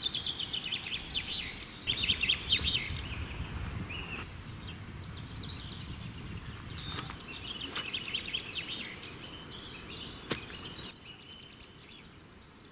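Songbirds singing in two bursts of rapid high chirping notes over a low steady rumble, which drops away near the end.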